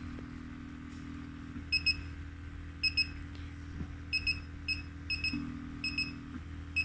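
Short electronic double beeps from a vacuum breast-massage machine's control panel, roughly one a second, as the suction-power setting is adjusted. Under them the machine's vacuum pump hums steadily, with a second, higher hum starting and stopping twice.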